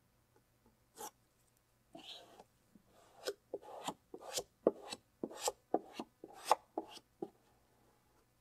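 Felt-edged vinyl squeegee rubbed in quick short strokes over a freshly laid vinyl stripe on a car door, pressing the film down onto the panel; the strokes come about four a second from about three seconds in, after a single click and a brief scrape.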